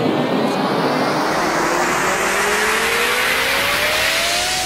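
Rising sweep effect: a whooshing noise that climbs in pitch, with one tone gliding steadily upward alongside it, like an engine revving up.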